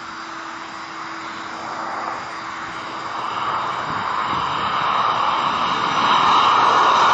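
Boeing 737 on final approach, gear down, its twin jet engines growing steadily louder as it comes closer. The engines carry a whine that strengthens toward the end, and a faint steady hum fades out about halfway through.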